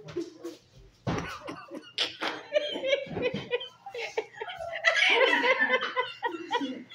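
Several people laughing and chuckling, with a couple of sudden pillow smacks about one and two seconds in.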